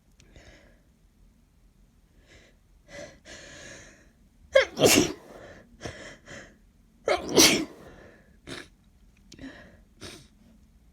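Two snotty sneezes from a woman with a head cold, about two and a half seconds apart, each preceded by gasping in-breaths, followed by short breaths and sniffs.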